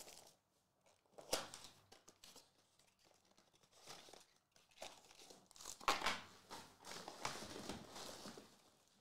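Foil trading-card pack wrappers crinkling and rustling as they are handled, in scattered crackles with a sharp one about a second in and a longer, louder stretch of crinkling from about six seconds in.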